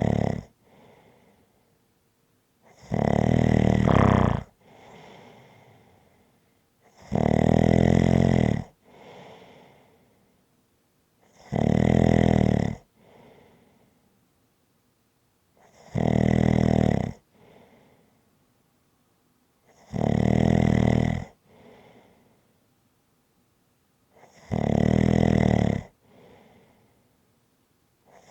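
Rhythmic snoring: a loud, buzzing snore lasting about a second and a half, repeated at a steady interval of about four seconds, with a much fainter breath sound shortly after each.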